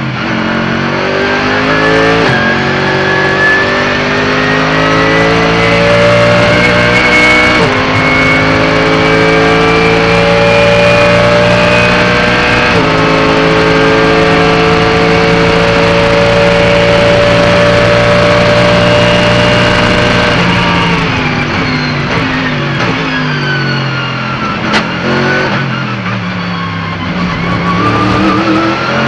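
Mercedes-AMG GT3's naturally aspirated V8 heard onboard at full throttle. It climbs through the gears with upshifts about 2, 8 and 13 seconds in, then holds high revs. After about 20 seconds the pitch falls in steps through downshifts, and it accelerates again near the end.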